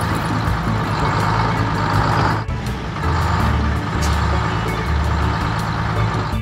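Tractor engine sound effect running steadily over background music, with a brief break about two and a half seconds in.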